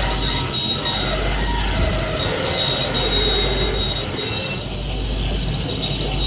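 Large engine lathe facing a big rusty steel plate: the cutting tool scraping across the spinning face, with a steady high-pitched whine over the running machine.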